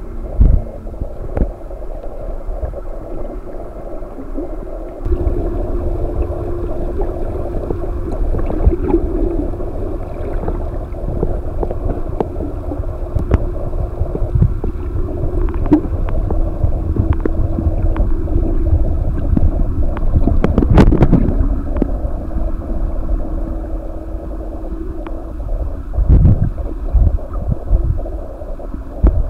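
Humpback whale song heard underwater: a long low tone held for many seconds at a time, breaking and shifting slightly in pitch a few times, over the low rumble and rush of water on the camera, with scattered clicks and a louder surge of water noise about two-thirds of the way through.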